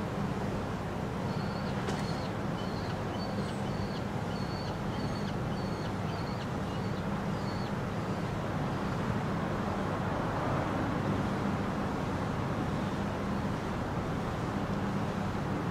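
Steady low rumble of city traffic. During the first half, a small bird gives a run of about a dozen short, thin high chirps, roughly two a second.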